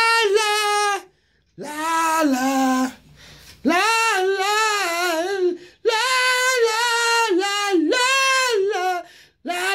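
A man singing solo in a high falsetto voice, holding long wavering notes in several phrases with short breaks for breath between them.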